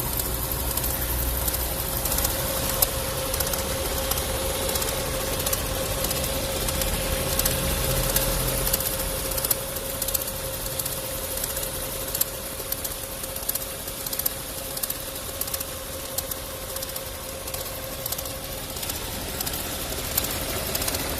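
Volkswagen 1.4 TSI (BMY) petrol engine idling with a fast ticking, rattling knock and a steady whine; it sounds like timing-chain rattle but comes from the failing water pump. The low engine rumble eases about nine seconds in.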